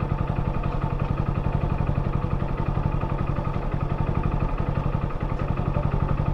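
Motorcycle engine idling steadily, a fast even putter that holds the same speed and loudness throughout.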